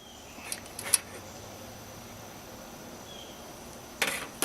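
A few light clicks and taps of mess-kit cookware and utensils being handled, with a short scraping rush about four seconds in, over a faint steady hiss.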